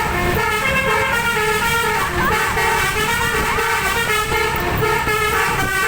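Twelve-trumpet Basuri telolet bus air horn playing a fast koplo-style tune, its notes stepping quickly from one pitch to the next, over low road and engine noise.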